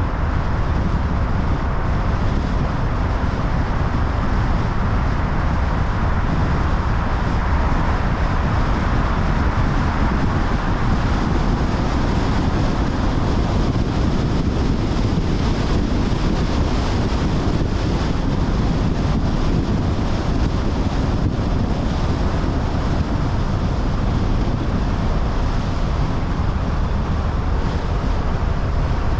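Steady rush of wind over a car-mounted microphone, mixed with tyre and road noise from the car driving at road speed.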